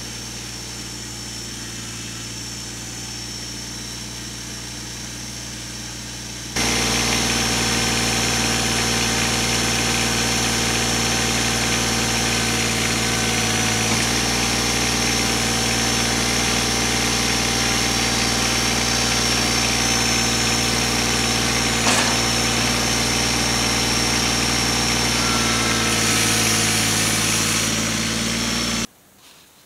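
Kubota BX2360 compact tractor's 23-horsepower three-cylinder diesel engine running steadily while the front loader works, louder from about six seconds in, with a single knock a little after twenty seconds; the sound breaks off near the end.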